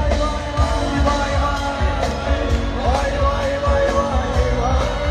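Live band music with a steady kick-drum beat about twice a second under a gliding melody line.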